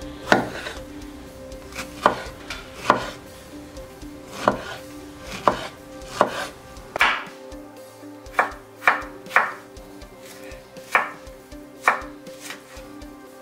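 Kitchen knife chopping fresh strawberries on a wooden cutting board: about a dozen separate knocks of the blade on the wood, at an uneven pace of roughly one a second.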